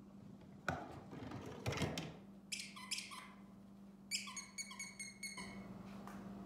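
Dog's squeaky toy being squeezed: a few handling knocks, then short squeaks, about three, then a quicker run of about six.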